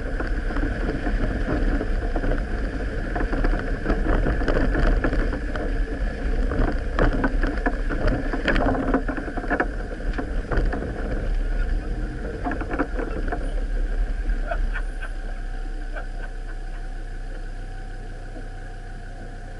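Off-road vehicle driving along a bumpy dirt field track: a steady engine-and-road noise with many rattles and knocks from the jolts. The knocks thin out and the sound grows quieter and smoother over the last few seconds.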